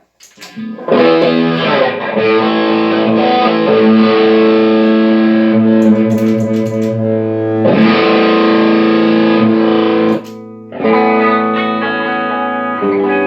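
Electric guitar played through a Line 6 HD500X multi-effects unit with a distorted tone: chords struck and left to ring, a new one about a second in, then near eight, eleven and thirteen seconds. The repaired unit is passing signal at its output.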